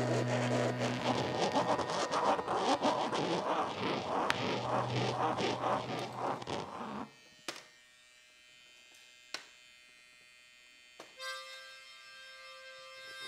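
Found objects amplified through contact microphones in improvised music: a dense buzzing and scraping texture over a steady low hum that cuts off suddenly about seven seconds in. Then comes near silence broken by a few sharp clicks, and a quiet sustained tone enters near the end.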